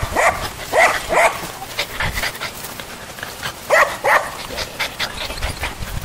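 Squeaky dog toy squeezed and released, giving short high squeaks in matching pairs, twice plainly with a few fainter squeaks between.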